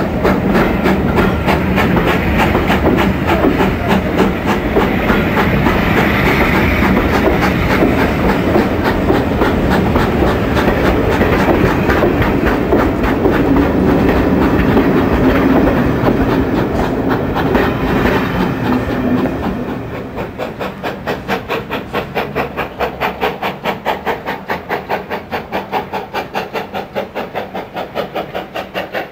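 Wheels of passing steam-hauled railway coaches clattering over the rail joints in a steady clickety-clack. About twenty seconds in, the sound drops as the last coach goes by, and the rhythmic clatter fades away.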